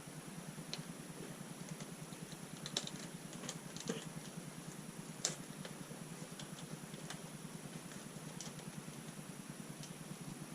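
Scattered light clicks and taps of small hand tools and metal parts being handled on a workbench, a few sharper ones around three to five seconds in, over a steady low hum.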